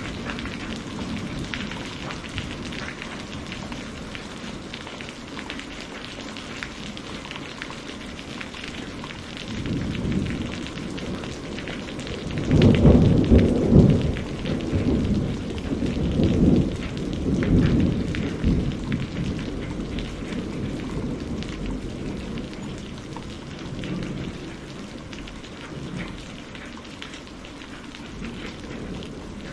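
Steady rain with a thunder rumble that builds about ten seconds in, is loudest for several seconds, then rolls away.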